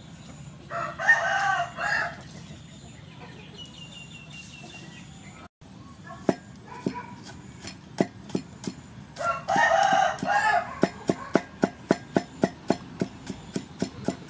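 A rooster crows twice, about a second in and again around ten seconds in. From about six seconds in, a cleaver chops garlic on a wooden chopping block, the strokes settling into a steady rhythm of about three a second near the end.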